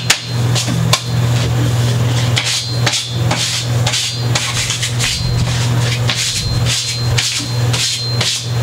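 Sandpaper being rubbed and brushed clean of dust from sanding a guitar nut: quick, rough, repeated strokes at about two to three a second, with a couple of sharp taps near the start. A steady low hum runs underneath.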